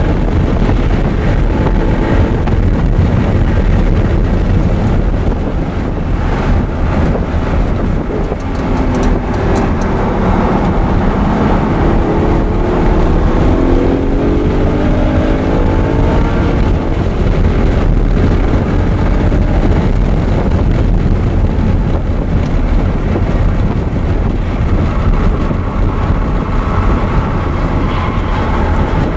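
Audi R8 engine running hard on a race track, its pitch climbing in several short rising runs as it accelerates through the gears, over steady wind and road noise.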